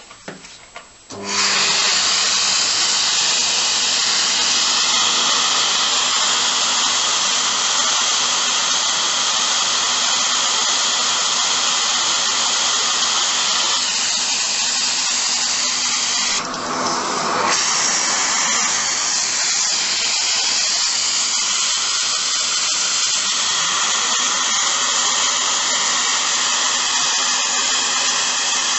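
Vacuum cleaner switched on about a second in and running steadily with a whining motor, drawing air through motorcycle carburettors for airflow balancing. The sound briefly dips and changes character a little past halfway.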